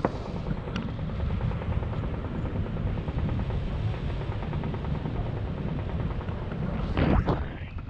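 Wind buffeting the microphone of a camera held out in tandem paragliding flight: a steady low rushing rumble, with a louder burst near the end.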